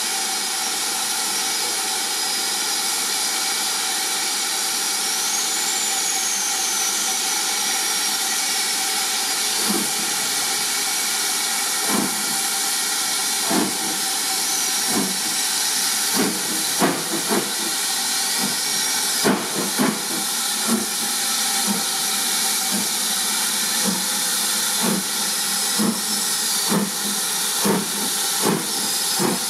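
BR Standard Class 4 2-6-4 tank locomotive moving off slowly, with a steady loud hiss of steam from its open cylinder drain cocks. From about a third of the way in, irregular exhaust beats come in and grow more frequent toward the end.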